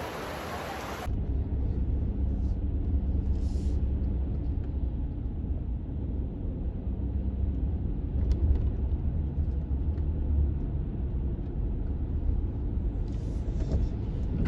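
Steady low rumble of a car driving, starting about a second in.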